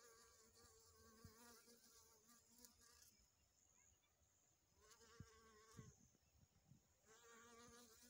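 Honeybee buzzing faintly in flight as it forages between small flowers: a wingbeat hum that comes and goes. It sounds for about three seconds at the start, briefly again near the middle, and once more from about seven seconds in.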